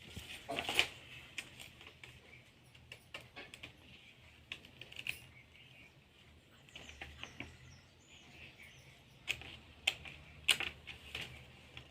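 Irregular sharp clicks and light knocks of objects being handled, with the loudest few near the start and between nine and eleven seconds in.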